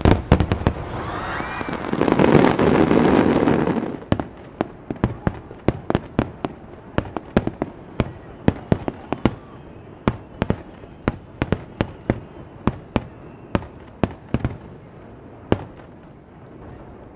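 Aerial firework shells bursting. A loud, dense rush of noise in the first few seconds gives way to a rapid series of sharp bangs, about three a second, that thin out near the end.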